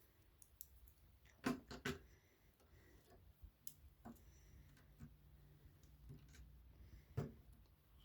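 Scattered light clicks and knocks of plastic Lego pieces as a built Lego pirate ship is handled and a section moved, with a few sharper clacks at about one and a half to two seconds in and again about seven seconds in.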